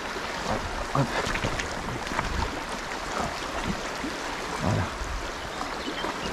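River water running steadily over stones, a constant rush of current.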